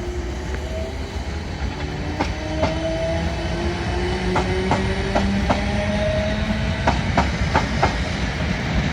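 Class 455 electric multiple unit pulling out. Its traction motors whine in a slowly rising pitch as it accelerates, over a steady rumble, and the wheels click over rail joints, the clicks coming more often in the second half.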